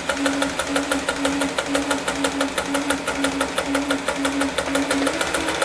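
Olimatic 4000 electric sewing machine running steadily as it sews a zigzag test seam, its needle mechanism clicking about ten times a second over a pulsing motor hum.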